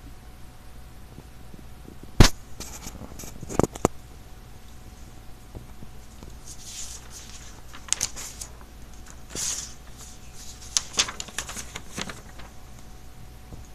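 Quiet handling sounds: a sharp knock about two seconds in, then scattered soft clicks and brief rustles of a hand and a fleece blanket around a resting puppy, over a low steady hum.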